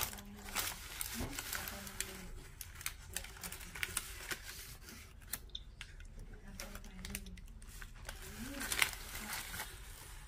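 White paper sandwich wrapping rustling and crinkling as a baguette is moved about on it, in short irregular crackles, the loudest near the end.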